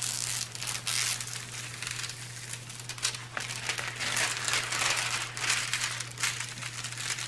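Clear plastic protective film on a diamond painting canvas crinkling and rustling as hands smooth it flat, in repeated strokes.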